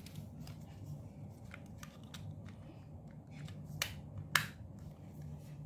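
Small plastic clicks and handling noise as the antenna is fitted to a toy RC car's can-shaped remote, with two sharper clicks about four seconds in, over a low steady hum.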